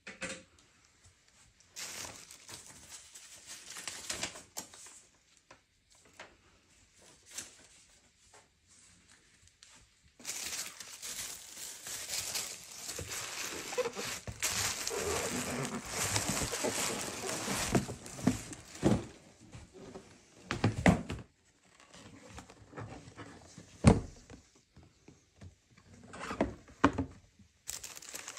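Tissue paper rustling and crinkling as it is pulled aside and handled in cardboard and gift boxes. There is a long stretch of rustling in the middle, and a few sharp knocks from the boxes being handled later on.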